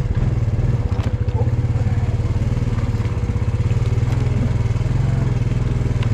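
ATV engine running steadily with a pulsing low rumble as it rides along a grassy trail, with a few light knocks.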